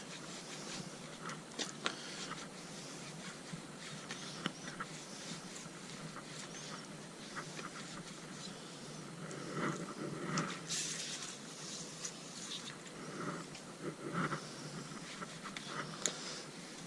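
Scattered clicks, knocks and rustling as a motorcycle wheel rim is handled and wiped clean with a towel, with a brief hiss about eleven seconds in.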